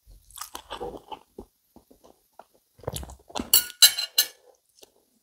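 Knife and fork working on a sausage on a ceramic plate, with chewing, then a cluster of sharp clinks about three to four seconds in as the cutlery is set down on the plate.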